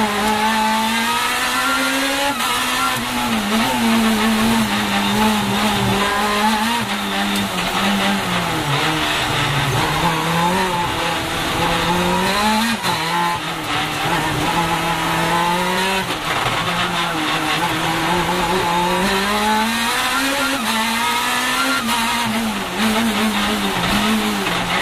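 Supercharged Lotus Exige race car engine heard from inside the cockpit at full speed on track, revving up through the gears with sharp drops in pitch at each shift and rising and falling again through the corners.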